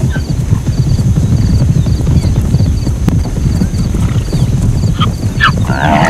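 Zebra calls over a dense low rumble: short yelping calls about five seconds in, then a braying call starting near the end.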